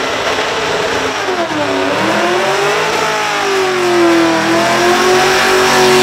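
Supercharged, fuel-injected LS1 V8 of a Holden Commodore revving hard during a burnout. The revs dip and climb again in the first few seconds, then are held high and steady through the second half.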